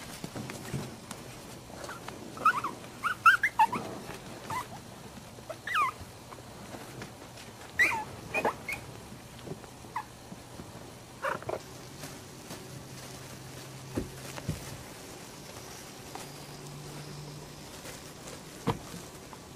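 Maltese puppies play-fighting, giving short high-pitched yips and squeaks: a quick cluster about two to four seconds in, then single ones every second or two until about twelve seconds in.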